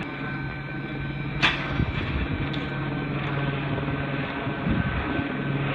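Police helicopter circling overhead: a steady engine and rotor drone, with one sharp click about a second and a half in.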